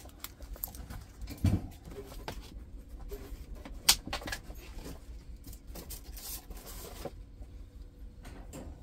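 Plastic-wrapped diamond painting kits being handled on a wooden table: crinkling and rustling with scattered clicks, a dull thump about a second and a half in and a sharp click near four seconds.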